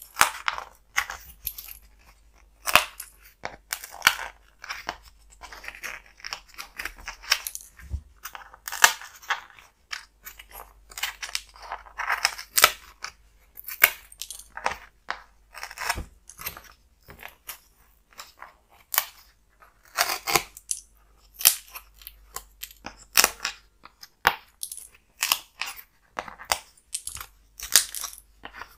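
Small die-cut pieces being pushed out of a printed puzzle board one after another: irregular sharp pops and snaps, with the loose pieces clicking onto a tabletop and the board scraping and rustling under the fingers.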